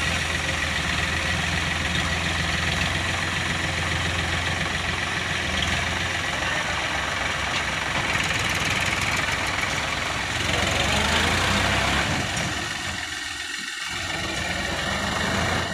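Diesel engine of heavy farm or construction machinery running steadily at low revs, a little louder about twelve seconds in and then dipping briefly.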